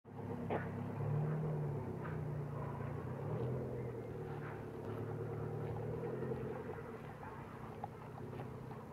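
Motor vehicle engine running, a steady low hum that shifts slightly in pitch, with faint scattered clicks over it.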